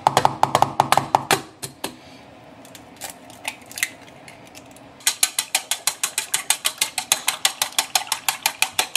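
Chopsticks beating eggs in a stainless steel plate: a fast, even clicking of about six strokes a second that starts about five seconds in. Before that, a short run of clicks and then a few scattered taps as eggs are cracked into the plate.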